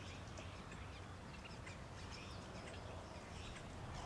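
Faint, scattered high chirps and short calls of birds over a steady low background hum.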